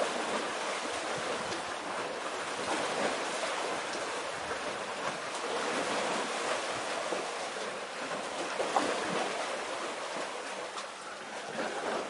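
Sea waves and surf washing, a steady rushing noise.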